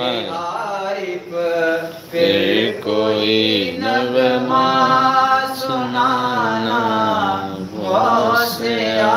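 A man reciting a manqabat, an Urdu Sufi devotional poem, in a melodic chant. He draws out long notes that bend up and down, with short breaks between phrases.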